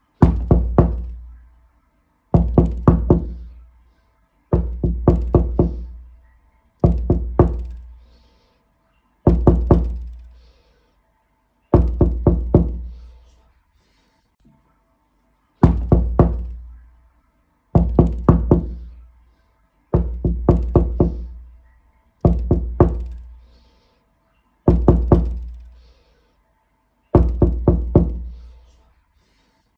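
Knocking on a door in repeated bursts of several quick raps, a burst about every two seconds. Each burst rings with a deep boom and dies away before the next.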